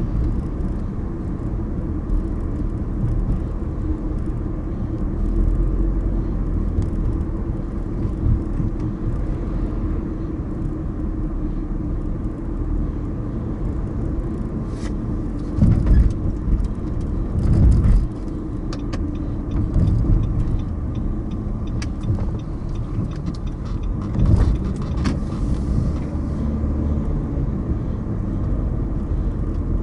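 Car driving on city streets: steady low road and tyre rumble with engine noise, with a few heavier bumps about halfway through and again later on.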